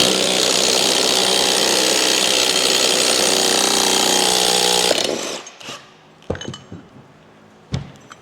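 Power tool running steadily for about five seconds, winding a puller bolt into the drive clutch's centre thread so that it presses against a rod and pulls the clutch off its taper. It then stops, and a few short knocks follow.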